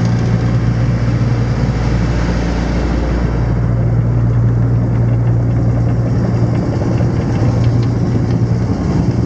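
Engine running steadily with a constant low hum and rumble.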